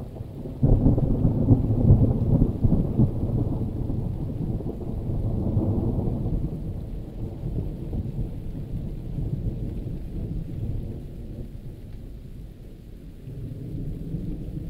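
Thunder breaks suddenly about a second in and rolls on as a long low rumble that slowly fades, then swells again near the end, with steady rain falling underneath.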